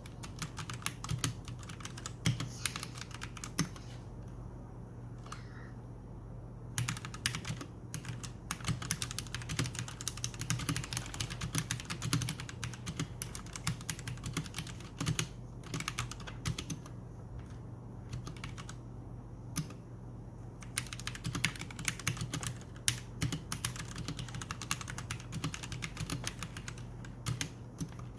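Royal Kludge G68 mechanical keyboard with red linear switches, stock without added foam, being typed on in fast runs of keystrokes broken by short pauses, over a steady low hum.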